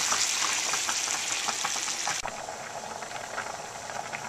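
Ground beef and chopped tomatoes sizzling and crackling in a frying pan on high heat. About two seconds in it cuts to a quieter, steady bubbling of a pot of spaghetti at a rolling boil.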